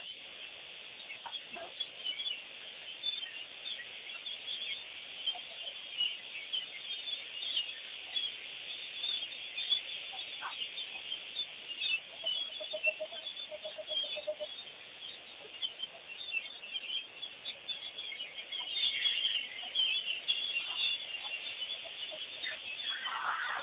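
Wild birds at a waterhole calling and chirping together in a dense, continuous chatter, with a short run of lower, evenly repeated notes about halfway through.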